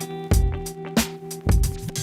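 Background music: a held guitar chord over a steady drum beat.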